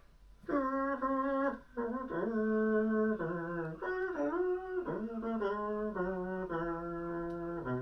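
A slow tune played as a string of held notes, each about half a second to a second long, stepping up and down in pitch, with a brass-band sound.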